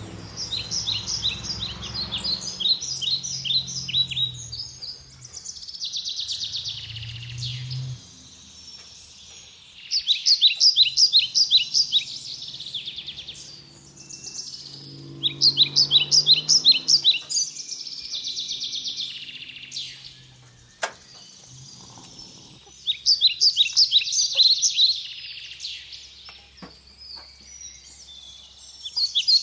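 A songbird singing: bursts of quick, bright, repeated chirps, each phrase lasting a second or two and coming back every few seconds.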